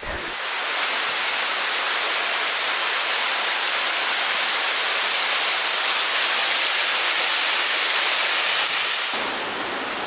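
Mountain waterfall pouring down a rock face: a steady rush of falling water, dropping a little in level about nine seconds in.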